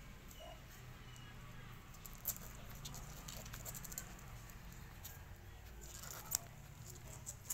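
Two-week-old puppies suckling at their mother's teats: faint wet smacking and clicking, with a couple of sharper clicks and a few tiny squeaks.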